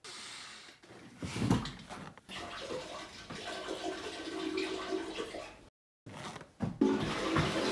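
Rushing water, steady, with a faint pitched hum in the middle. It cuts off abruptly about six seconds in.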